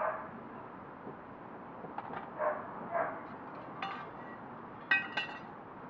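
A dog barking a few times in the background, short faint barks, then a couple of sharp clinks near the end.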